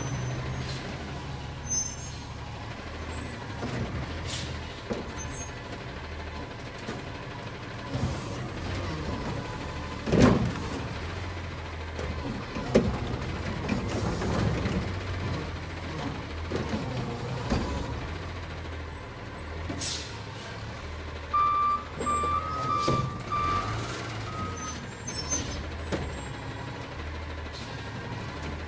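Recycling garbage truck's diesel engine running steadily while its front lifting equipment works, with scattered clanks and knocks, the loudest about ten seconds in. Its warning beeper sounds for a few seconds about three-quarters of the way through.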